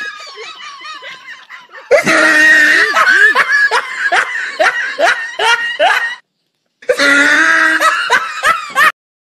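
Laughter in quick repeated pulses, fainter at first and loud from about two seconds in. It breaks off for about half a second after six seconds, resumes, and stops abruptly near the end.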